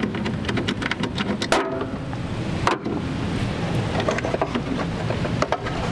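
Hands working a radiator hose loose in a truck's engine bay: scattered clicks and knocks of metal and rubber, the sharpest about a second and a half in and again near three seconds, over a steady low rumble.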